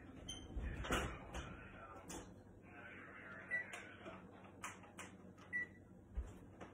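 Electric oven's control-panel keys being pressed to set the broiler timer: two short high beeps about two seconds apart, among light clicks and knocks.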